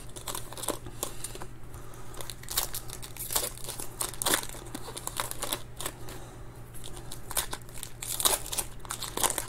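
Foil wrapper of a 2021 Panini Certified Football card pack crinkling and tearing as it is pulled open and handled by hand, in many irregular short crackles.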